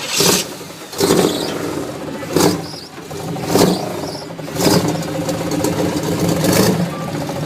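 Car engine running, with short, loud revs about once a second.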